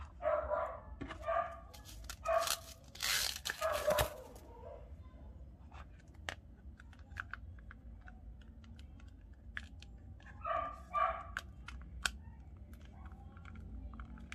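A dog barking in short yaps, several in the first few seconds and a couple more about ten seconds in. Around three seconds in comes a burst of plastic packaging tearing.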